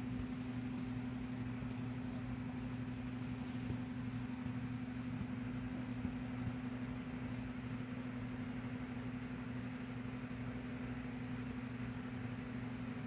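Steady low machine hum in a small room, with a few faint ticks in the first half.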